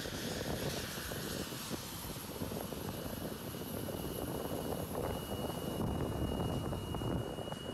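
Distant jet engines of a Boeing 787-9 airliner on its takeoff roll, a steady rumble and hiss heard across the open airfield, with a thin steady whine coming in about five seconds in.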